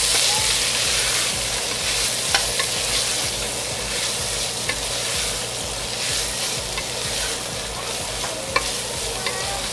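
Chicken chunks and chorizo sizzling in hot oil in a metal pot while a wooden spoon stirs them, scraping the pot and knocking against it a few times.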